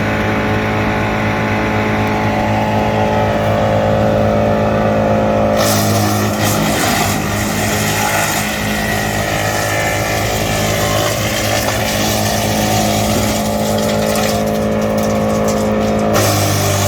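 Tractor-mounted GL&D M175DS woodchipper running with a steady machine hum. From about six seconds in, a dense noisy chipping sound joins it for about ten seconds as wood is fed through, then it drops back to the steady hum.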